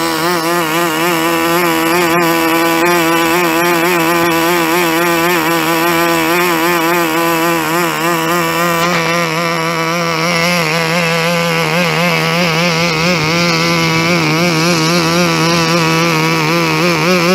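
Small model glow engine running fast and steadily with a high buzzing note, its speed wavering slightly. Near the end it speeds up and the pitch climbs.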